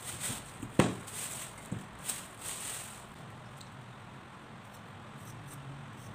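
Raw potatoes set down one after another into a stainless steel bowl, several knocks with the loudest about a second in. From about three seconds in, faint light scraping of a vegetable peeler on a potato.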